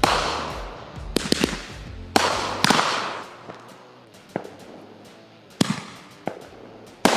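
Fireworks going off: a string of sharp bangs at irregular intervals, a quick cluster about a second in and a loud one near the end, each followed by a fading crackling hiss.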